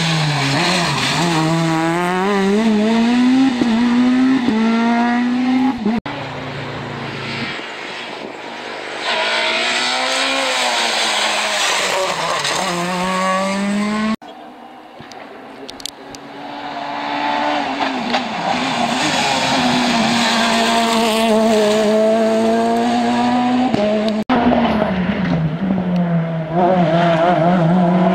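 Peugeot 207 S2000 rally cars' naturally aspirated 2.0-litre four-cylinder engines revving hard through a series of passes. The pitch climbs through each gear and drops at each shift, with abrupt changes from one car to the next about every six to ten seconds.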